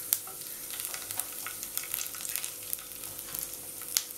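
Whole cumin seeds sizzling in hot oil in a kadai: a steady hiss with many small scattered pops, the sharpest just after the start and near the end.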